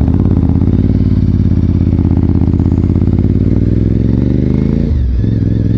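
Honda RC51's 1000cc V-twin engine accelerating hard, its revs climbing steadily for about five seconds. Near the end the pitch falls sharply with a gear change, then the engine pulls on in the higher gear.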